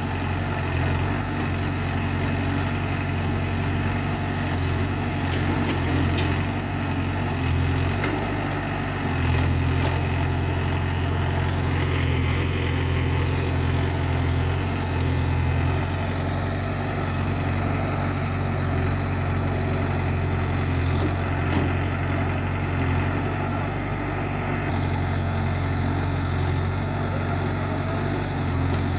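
Heavy machine's diesel engine running steadily at low revs, its low note shifting slightly every few seconds as the load or throttle changes.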